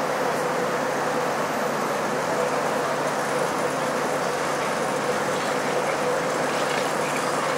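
Steady city ambience: an even, continuous wash of traffic noise with a steady hum running through it.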